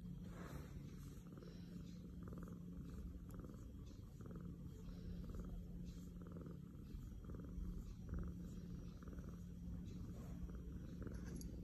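Cat purring softly, a fine rattling purr that swells and eases about twice a second with its breathing.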